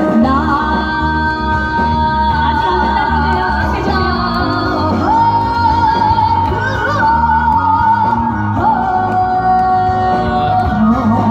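Fusion gugak pop song playing: a long-held, wavering melody line that shifts pitch every few seconds, over a steady backing beat.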